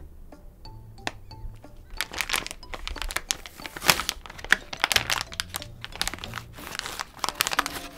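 Soft plastic packet of pet body wipes crinkling as it is handled and opened, with dense crackling from about two seconds in until just before the end.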